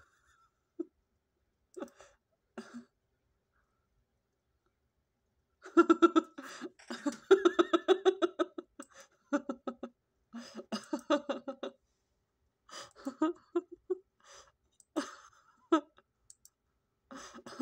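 A high-pitched voice making wordless, laughter-like sounds in short broken bursts, busiest in the middle of the stretch.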